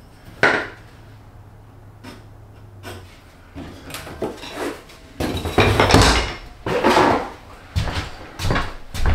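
Handling noise on a bare plywood subfloor: a sharp tap about half a second in, then from about five seconds a run of loud knocks and scuffs as a laminate plank is set down, ending in footsteps as he gets up and walks.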